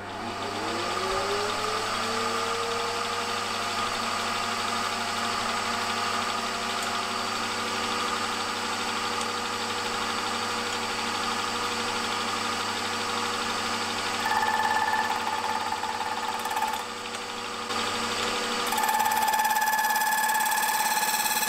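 Milling machine spindle driving a slitting saw, spinning up with a whine that rises in pitch over the first couple of seconds and then settles into a steady run. About 14 seconds in, a higher steady tone joins for a few seconds, breaks off, and returns near the end as the saw starts cutting a slot in a bronze bar.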